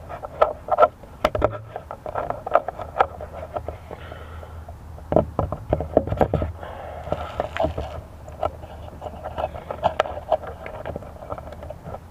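Irregular clicks, taps and scrapes of hands handling a drone right beside its onboard camera's microphone.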